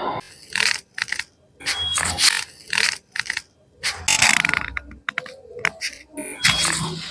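Chiropractic adjustment: a quick series of short cracks, clicks and rustles, about a dozen in all, with brief gaps between them.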